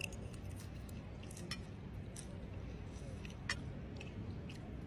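Metal spoon and fork clinking against a ceramic bowl in a few sharp clicks, the two clearest about a second and a half in and two seconds after that, over a steady low room hum.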